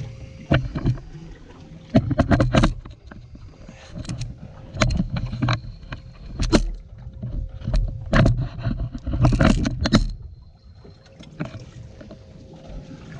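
Irregular knocks and bumps of gear being handled on a fishing boat's deck, loudest in clusters with a quieter stretch near the end, over a low rumble and a faint steady hum.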